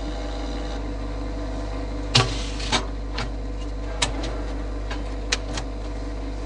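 Short knocks and clicks of a mold tray and clear plastic parts being handled and set in place in a vacuum casting chamber, about seven in all, the first the loudest, over a steady low hum.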